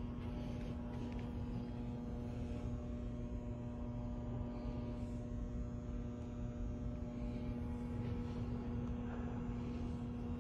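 Steady electrical-mechanical hum with a constant low rumble beneath it: the room tone of a large exhibition hall.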